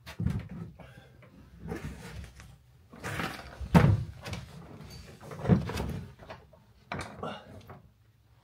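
A person crawling on hands and knees into a cramped loft eaves space over cables and timber: irregular knocks, bumps and scraping, the loudest knock about four seconds in.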